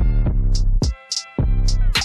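Background music: deep sustained bass notes under sharp, high percussion hits in a steady beat, with a short break about a second in.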